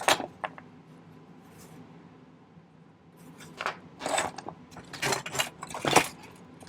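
Small metal jewellery tools and parts clinking and rattling on a workbench as they are picked up and moved about: a sharp click at the start, then a run of short clinks from about halfway through.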